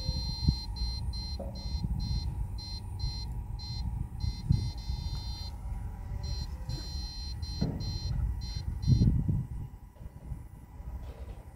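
High-pitched electronic beeping from a backpack electrofishing unit, pulsing about two to three times a second in runs broken by short pauses. Underneath are rustling and a few low thuds from wading through wet marsh vegetation.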